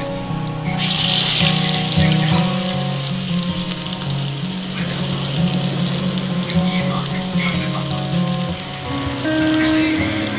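Chopped onions hitting hot oil in a pressure cooker: a sudden loud sizzle about a second in, settling into steady frying. Background music plays underneath.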